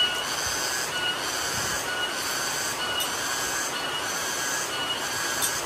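Cicadas (tonggeret) calling in a high buzzing phrase that pulses about once a second, alternating with shorter higher notes, over the steady hiss of rain.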